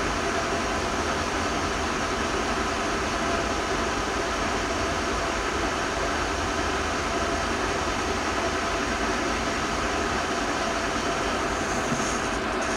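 Pacemaker metal lathe running with its chuck spinning while a Forma SP CNMG carbide insert takes a turning cut on a metal workpiece: a steady machine noise with several held tones, unchanging in level.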